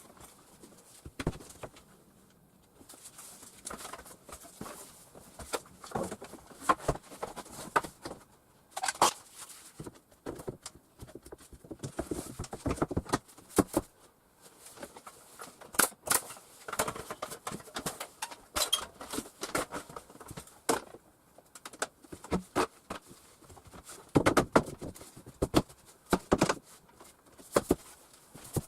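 Irregular knocks, taps and clatter of hand work, scattered through the whole stretch with no steady rhythm.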